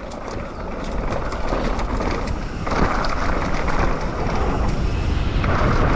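Wind rushing over the camera's microphone and mountain bike tyres rumbling on a dirt trail while riding at speed, with scattered rattles and clicks from the bike, getting louder as the rider picks up speed.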